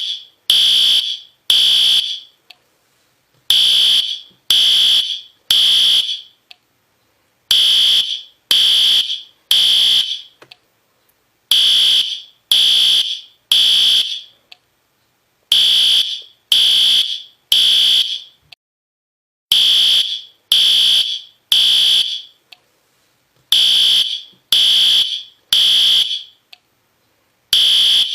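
System Sensor P2R fire alarm horn sounding the temporal-three evacuation pattern: three short, loud, high-pitched horn blasts, a pause, then three again, repeating about every four seconds.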